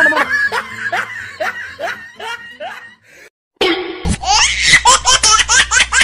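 Laughter sound effects: a run of falling 'ha-ha' laughs that fades away, a sudden break to silence about three seconds in, then a louder, quicker burst of laughter.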